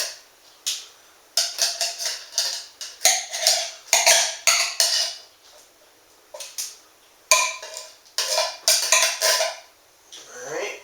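Metal utensil scraping and clinking against a metal pan or tray in repeated short strokes with brief pauses, as black beans are spooned out and spread thin.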